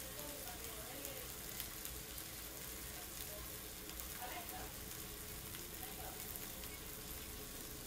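Chicken breasts frying on a flat griddle over a gas stove: a steady sizzle with many small crackles.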